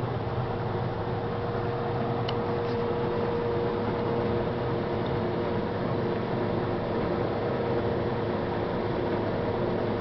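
Combine harvester running steadily: a constant machine noise with a steady whine running through it.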